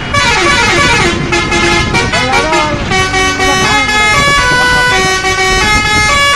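A multi-tone musical vehicle horn sounding a run of held notes, with a few sliding notes, over engine and road rumble. It starts and stops abruptly.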